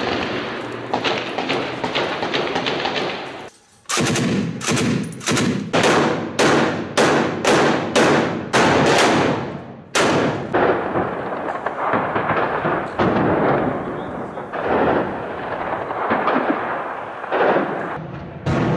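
Machine-gun fire in combat: a steady din of gunfire, then after a short break about a dozen loud single shots roughly every half second, each with an echoing tail. After that, more irregular, quieter bursts of gunfire.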